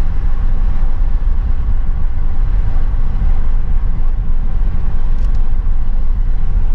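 Car driving on a dirt road: a steady low rumble of tyre and wind noise heard from inside the cabin, with two faint clicks about five seconds in.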